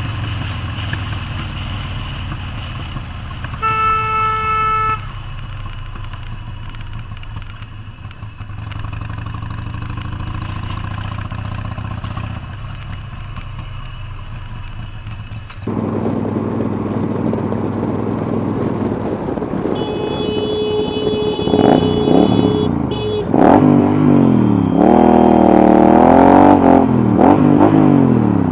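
Motorcycle riding along with steady engine and wind noise, and a vehicle horn honking once for about a second near the start. About halfway through the sound changes suddenly; a horn then blows for about three seconds, followed by loud sounds that rise and fall in pitch.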